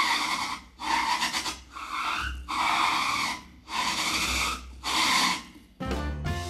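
A grooved, ridged object rubbed on a wooden surface in about six separate scraping strokes, each under a second long. Near the end comes a brief ringing sound that dies away.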